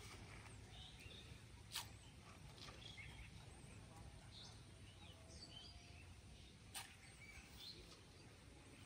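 Faint outdoor quiet with scattered small birds chirping over a low steady rumble, and two sharp clicks, one about two seconds in and one about seven seconds in.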